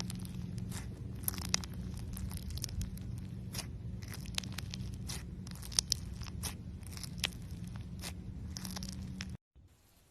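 Slime being squeezed and worked by hand, giving a dense run of crisp crackling pops and clicks. The sound cuts off abruptly about nine seconds in, leaving a much quieter stretch.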